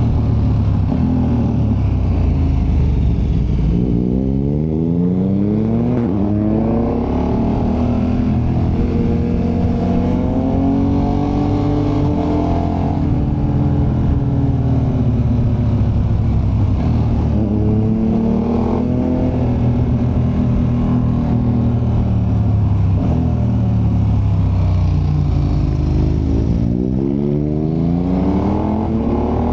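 KTM 1290 Super Adventure's big V-twin engine heard from onboard, its pitch rising under acceleration and falling back as the throttle is rolled off, several times over. The note climbs about four seconds in, again midway, and near the end.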